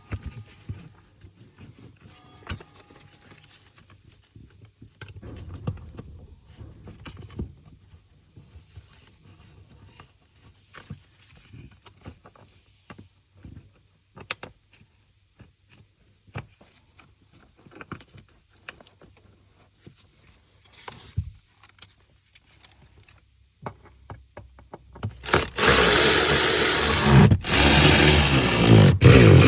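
Scattered clicks, taps and light scraping of hand work as the fuel pump access cover under the rear seat is put back. About four seconds before the end, a much louder, sustained sound with several pitches starts and keeps going.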